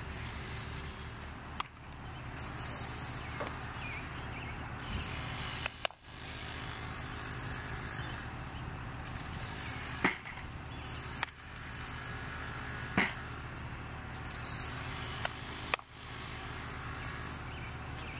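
Sharp cracks of baseballs being hit and caught during infield fielding practice, about half a dozen spread a few seconds apart, over a steady rushing outdoor noise.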